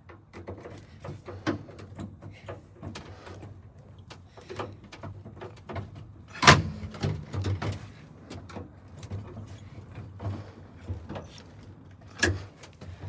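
Scattered small clicks, taps and knocks from hand work on a truck's interior door handle and door hardware, with a sharper knock about six and a half seconds in and another near the end.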